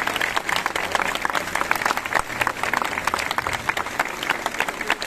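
A large crowd applauding, a dense and continuous patter of many hands clapping.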